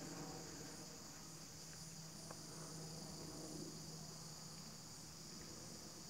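Insects shrilling in a steady, continuous high-pitched chorus over a low steady hum, with a few faint ticks.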